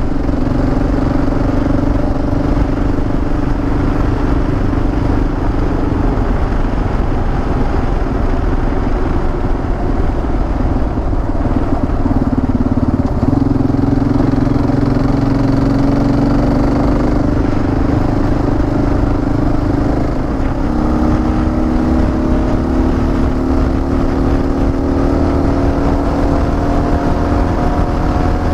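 Adventure motorcycle's engine running at cruising speed under wind noise and road rumble from a gravel road. In the last several seconds the engine note climbs steadily as the bike speeds up.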